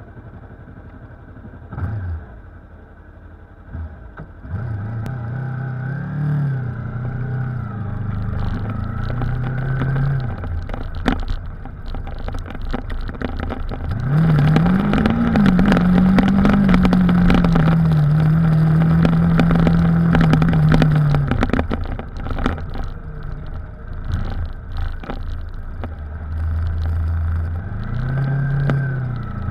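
Yamaha R3's parallel-twin engine riding along, its note rising and falling as the bike speeds up and eases off, loudest and highest from about halfway in until a few seconds later. Scattered knocks and rattles come through over the engine.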